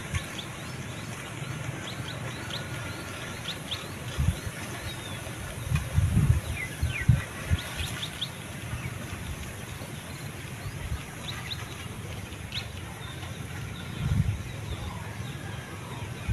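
Small birds chirping in short, scattered calls over a steady outdoor hiss, with a few brief low rustles and thuds.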